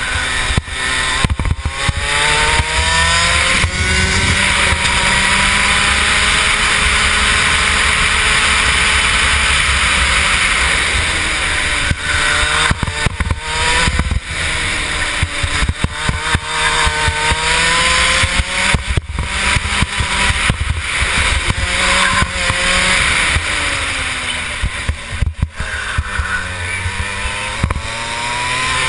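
Onboard sound of a Rotax 125 two-stroke single-cylinder kart engine at racing speed. It revs up in long climbs along the straights and drops off into the corners, again and again. A steady rush of wind on the microphone runs over it.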